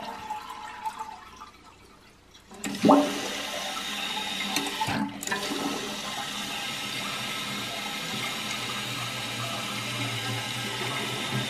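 Water running in an open toilet tank while its flush-valve flapper and chain are being worked: a quieter first couple of seconds, a sharp knock about three seconds in, then steady rushing water.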